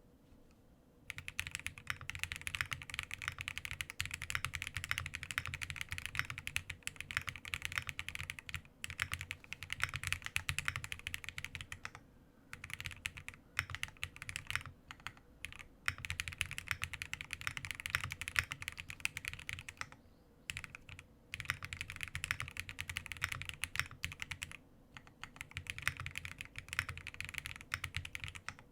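Fast typing on a Link65 mechanical keyboard with lubed KNC Keys Green Jacket linear switches, an aluminium plate, no foam and PBT keycaps. It starts about a second in and goes in runs broken by short pauses.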